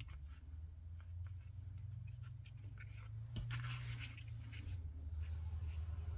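Small paper pieces being handled on a card: faint scratchy rustles and light clicks, busier in the second half, over a steady low hum.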